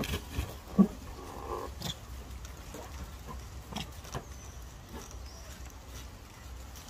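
A baby macaque mouthing and pawing at a rubber balloon. There are two loud, short sounds in the first second, then softer scattered handling noises.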